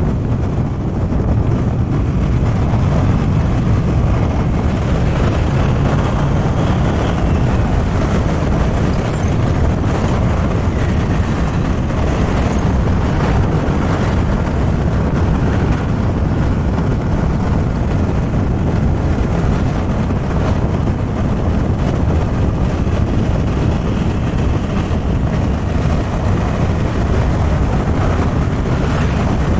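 Steady wind and road noise on a moving motorbike, the wind buffeting the action camera's microphone over the bike's running engine.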